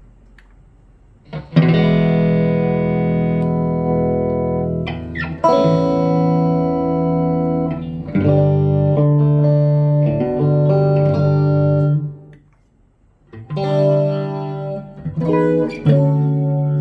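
Electric guitar played through a BOSS GT-1 multi-effects pedal, strumming chords that are left to ring out. After a second of faint amp hum the first chord comes in, with a brief gap about three-quarters of the way through before more chords.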